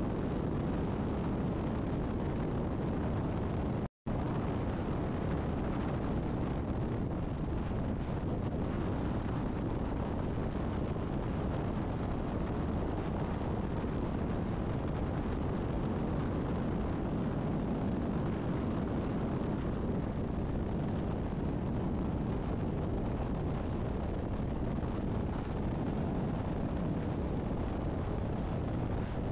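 Steady rumble of wind buffeting the microphone and tyre-and-road noise from a camera riding outside a vehicle at highway speed. The sound drops out to silence for a split second about four seconds in.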